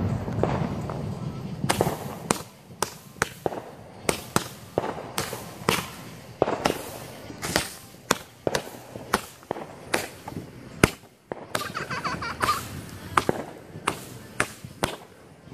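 Consumer fireworks going off at close range: an irregular string of sharp bangs and pops, about two a second, starting around two seconds in.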